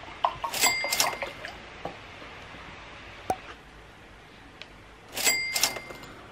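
Two short bursts of bright clinks, each with a brief high ring, about half a second in and again about five seconds in, over a faint steady room hiss.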